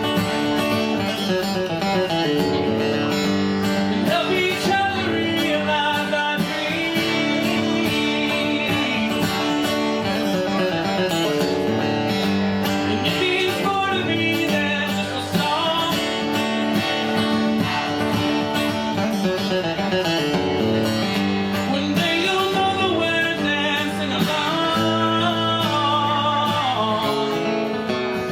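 Live band music led by acoustic guitar, in a country-blues style, playing steadily with some bending, sliding notes in the lead line.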